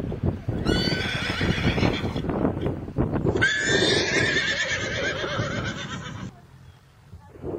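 Horse whinnying twice: a shorter whinny about a second in, then a longer wavering one that cuts off suddenly near the end.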